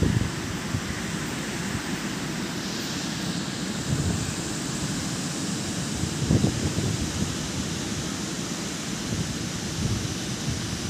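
Sea surf breaking and washing up a sandy beach, a steady rushing hiss, with wind buffeting the phone's microphone in low gusts, strongest about six seconds in.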